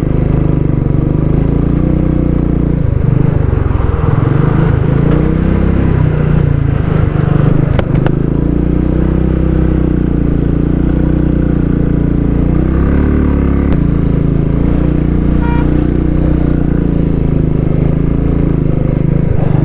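Motorcycle engine working hard up a steep, rough gravel climb. Its pitch rises and falls with the throttle, and there are a couple of sharp knocks from the rough road, one about eight seconds in and another a few seconds later.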